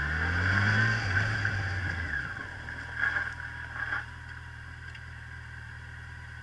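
Motorcycle engine pulling and rising in pitch under wind noise on the microphone, then slowing down and settling to a steady idle. Two brief louder noises come about three and four seconds in.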